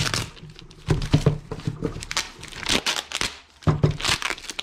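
Packaging being crinkled and torn open by hand, in irregular short bouts of rustling and ripping.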